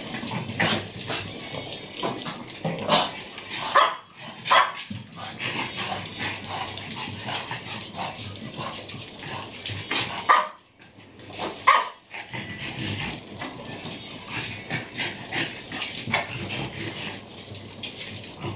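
Dogs playing rough together, with barks and yips among many quick clicks and scuffles. The loudest barks come about four seconds in and again near twelve seconds, with a short lull between them.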